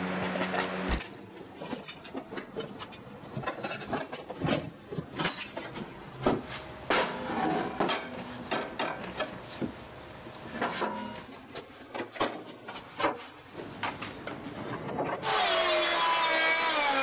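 Wooden boards being handled, with a run of irregular knocks, clatters and scrapes of wood on wood. A steady machine hum cuts off about a second in. Near the end a 2 HP router starts and runs with a whine that wavers and dips in pitch as it cuts.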